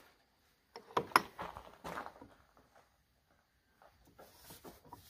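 Handling noise from a stripped two-stroke snowmobile engine's pistons and cylinder: a cluster of light clicks and knocks about a second in, then fainter scattered taps near the end.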